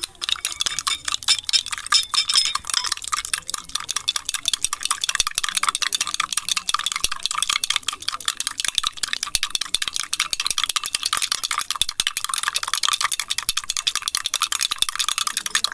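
Steel teaspoon rapidly beating instant coffee, sugar and a little milk against the inside of a glass mug: fast, continuous clinking and scraping. The mixture is being whipped into a froth for beaten coffee.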